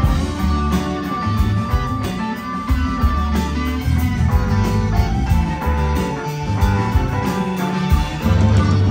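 Live rock band playing, with guitar to the fore over bass and drums; no singing.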